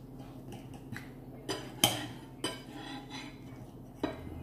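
Cutlery clinking against dinner plates during a meal: four sharp clinks with a brief ring, the loudest a little under two seconds in.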